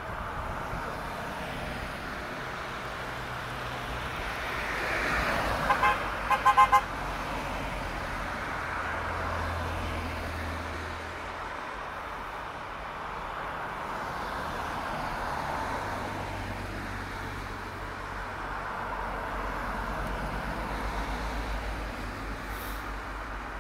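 A convoy of cars passing one after another, their tyres hissing on the wet road over a low engine hum. About six seconds in, a car horn gives a quick series of short toots.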